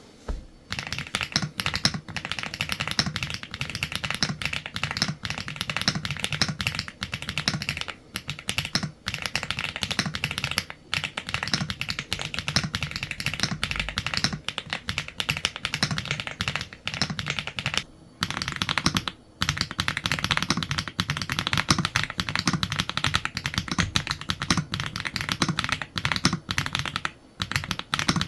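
Fast, continuous typing on a mechanical keyboard, with a dense run of key clacks broken by a few brief pauses.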